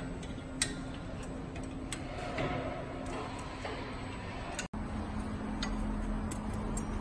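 Steady hum of the carton erecting machine with scattered light metallic clicks while the forming mould is adjusted by hand with a hex key. The hum drops slightly in pitch after a brief break about two-thirds in.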